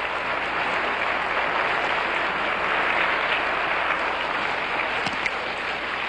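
Audience applauding: a steady sound of many hands clapping, growing a little louder around the middle.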